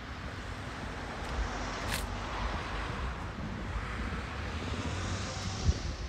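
A car passing on the street, its tyre and engine noise swelling over a few seconds and then easing off, with wind buffeting the microphone.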